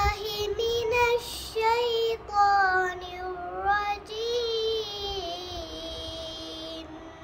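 A six-year-old girl's voice reciting the Quran in Arabic, chanted melodically in phrases that rise and fall. The last phrase ends on a long, wavering held note that stops near the end.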